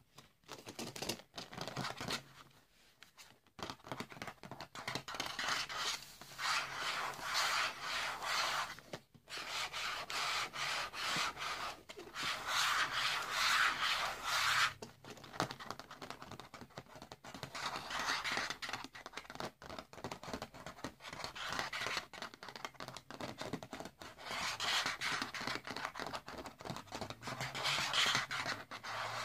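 Fingertips rubbing and scratching over a frosted plastic sheet and the paper page of a ring binder, making a dry, scratchy rubbing in long stretches broken by short pauses.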